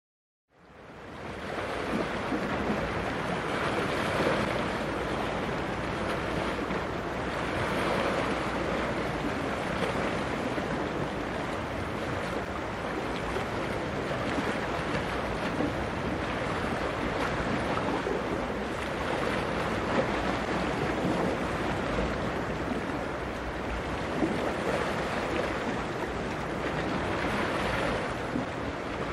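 Steady wind and water noise at the shore, with sea waves washing and swelling gently every few seconds. It fades in over the first second or two, and no engine tone stands out.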